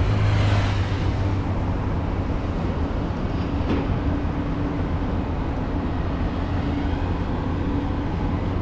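Steady road traffic noise with a strong low rumble, louder for the first second or so, with a single short click near the middle.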